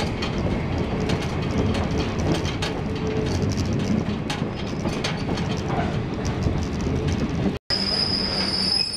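Rolling rumble and clatter of a railroad passenger car's wheels on the track, with frequent sharp clicks. It cuts out for an instant near the end, then a steady high-pitched wheel squeal comes in.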